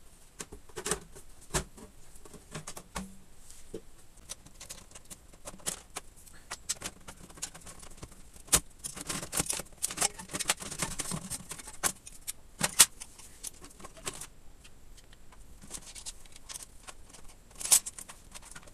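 Clicks, clinks and rattles of metal parts and cables handled inside an emptied aluminium Power Mac G5 case as the wiring harness and a metal drive cage are pulled out. The rattling is busiest in the middle, with a few sharper knocks later on.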